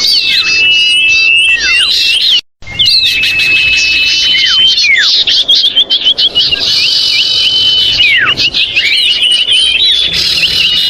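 Common iora (cipoh/sirtu) calling noisily in a dense run of high whistles: long level notes broken by many quick downward slurs, played as a bird-trapping lure call. The sound cuts out completely for a moment about two and a half seconds in, then resumes.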